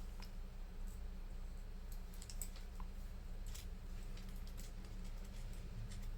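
Faint, scattered clicks and taps of small repair tools against an iPhone 8's internal parts while the ear speaker is being taken out, over a steady low hum.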